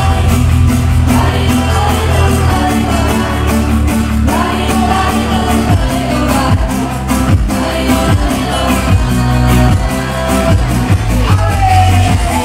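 Loud pop music with a steady dance beat and heavy bass, with a woman singing the melody over it.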